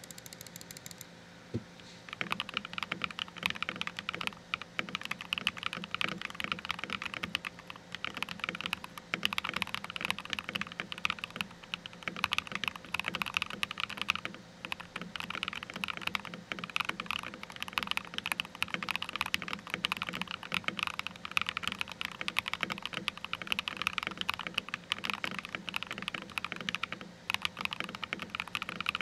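Typing on an FL CMMK MK870 mechanical keyboard with Gateron Smoothie Silver linear switches, tape-modded with PE foam and fitted with Akko ASA keycaps: a dense, continuous clatter of keystrokes starting about two seconds in.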